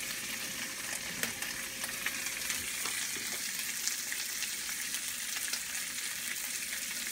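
Diced chicken and sliced sausage frying in skillets on a stovetop: a steady sizzle with scattered small pops and crackles.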